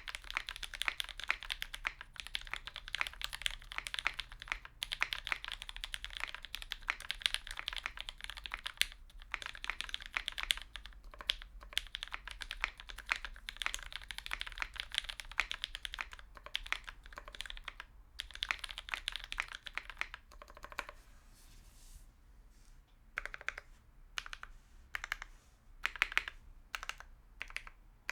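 Typing on a Leaf 60 mechanical keyboard with linear switches: Tealios stems in Gateron Milky housings, lubed with Krytox 205g0, on a polycarbonate plate with foam-dampened case. Fast, continuous keystrokes for most of the time, thinning to slower, separate presses about three quarters of the way in.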